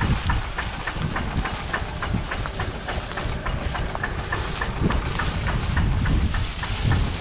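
Engine of a truck-mounted rice threshing machine running steadily, with a rapid, even ticking of about five ticks a second over a low rumble.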